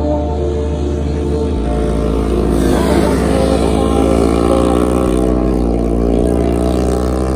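Small motorcycle engines revving as the bikes are ridden through sand, the pitch rising about three seconds in. A low bass tone that steps in pitch runs underneath.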